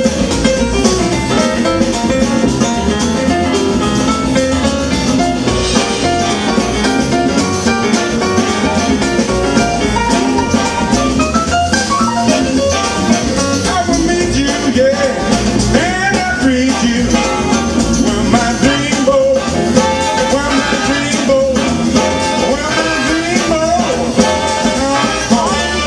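Big band playing jazz live, a full, continuous ensemble sound with a melodic line moving above a steady rhythm section.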